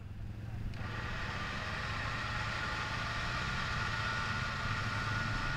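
Off-road vehicle engines running steadily, with a faint steady whine above the engine sound.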